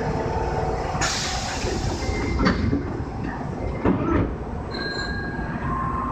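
Osaka Metro 66 series subway car standing at a platform: steady hum of the car's equipment, with a sudden hiss about a second in and a few short knocks after it.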